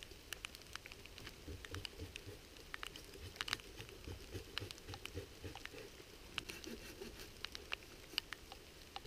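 Raindrops tapping on a waterproof GoPro camera housing: faint, irregular sharp ticks, a few a second.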